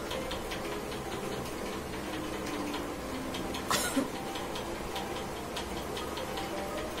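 Faint, steady, even ticking, with one short, sharp breath noise a little past halfway.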